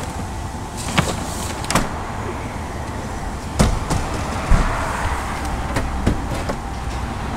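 A handful of sharp clicks and knocks, as of a vehicle door or locker latch being worked, over a steady low rumble of vehicles.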